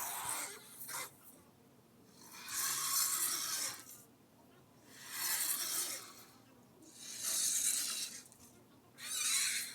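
Home-made sandworm creature sound effect: a series of breathy, hissing rasps. Two short ones come at the start, then four longer ones of about a second each, spaced roughly two seconds apart.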